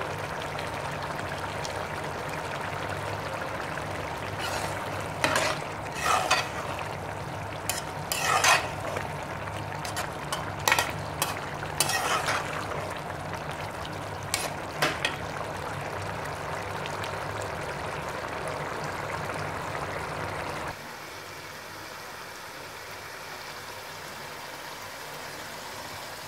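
Ridge gourd and mutton curry sizzling as it fries in a metal karahi, with a steel spoon scraping and knocking against the pan every few seconds while it is stirred; the curry is being fried until its water cooks off. A low steady hum underneath cuts out suddenly near the end, leaving a quieter sizzle.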